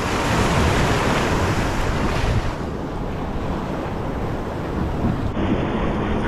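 Ocean waves breaking and washing over the rocks of a jetty, with wind buffeting the microphone, loudest over the first couple of seconds.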